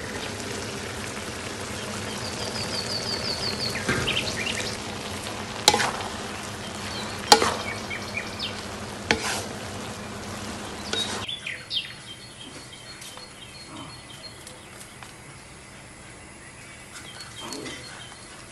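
Food sizzling in a frying pan, with a few sharp knocks of a utensil against the pan. The sizzle cuts off abruptly about eleven seconds in, leaving a quieter background with faint bird chirps.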